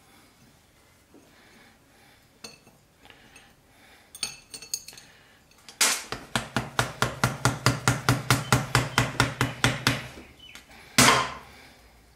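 Small ball-pein hammer tapping a flat scraper, metal on metal, in a quick even run of light strikes at about six a second for some four seconds, chipping off an old gasket stuck hard to an air-compressor crankcase. A few faint tool clinks come before it, and one louder hit near the end.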